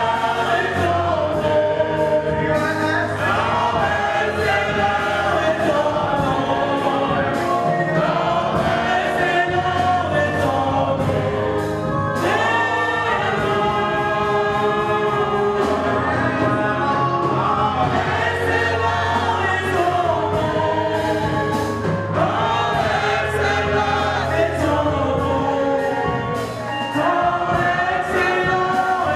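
Gospel music: a choir singing with a steady beat and band accompaniment.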